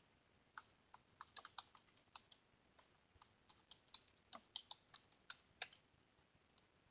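Computer keyboard typing: a run of quick, irregular key clicks lasting about five seconds, starting about half a second in.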